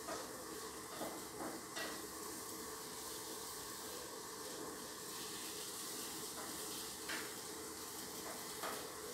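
Low, steady hiss of background noise, with a few faint short clicks scattered through it.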